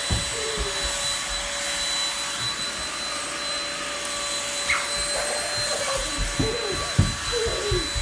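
Red corded Dirt Devil handheld vacuum running steadily with a high, even motor whine. Several low thumps and one sharp knock come in the last few seconds as it is pushed about.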